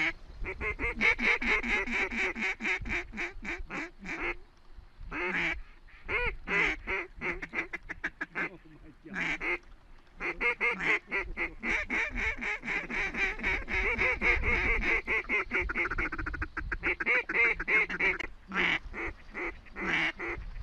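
Duck quacking in fast runs of several quacks a second, in bursts of one to several seconds broken by short pauses, with the longest run in the middle and second half.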